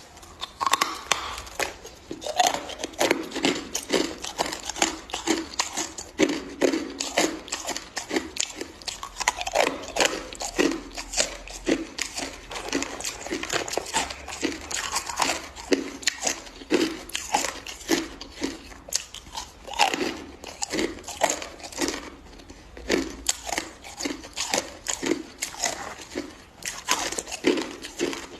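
A person biting and chewing hard, clear crushed ice: the ice cracks and crunches between the teeth in rapid, uneven crunches several times a second.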